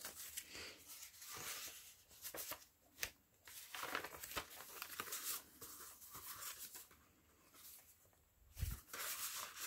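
Soft rustling and sliding of paper as journal pages are turned and a card is slipped out of a paper pocket, with a few light clicks and a soft bump near the end.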